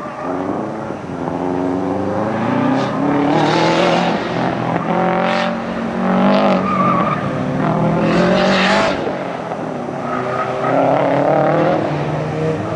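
Mazda RX-8's rotary engine revving up and down as the car is pushed hard around an autocross course, with several short bursts of tire squeal through the turns.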